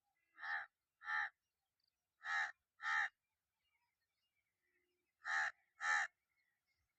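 Crow cawing: six harsh caws in three pairs, the pairs a second or two apart.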